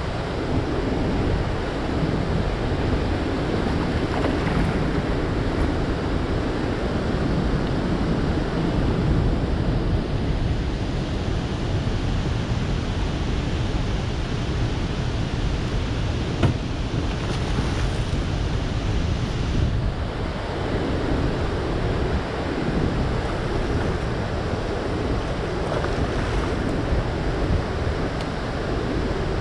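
Steady rush of turbulent water pouring from a dam's open spillway gates, with wind buffeting the microphone. A single sharp click sounds a little past halfway.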